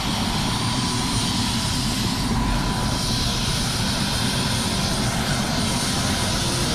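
Helicopter engine and rotor running steadily.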